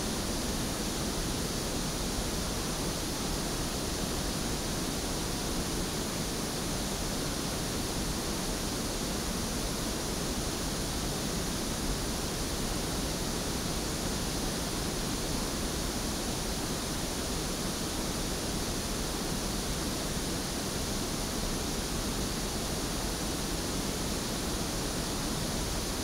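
Steady pink noise test signal, an even hiss across the whole range. It is being played to measure a dynamic microphone's frequency response on a real-time analyzer.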